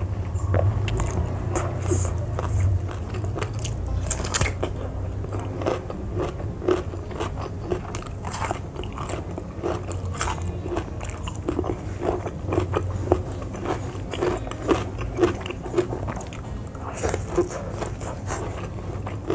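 Close-up biting and chewing of raw vegetables and jengkol: crisp crunches, then regular chewing at about two chews a second, over a steady low hum.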